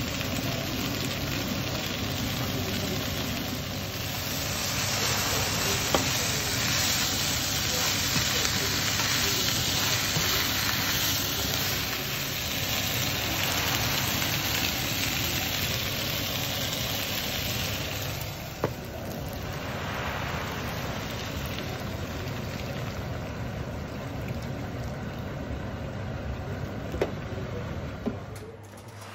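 Green beans, potatoes, carrots and onion sizzling steadily in a frying pan, with three sharp clicks along the way.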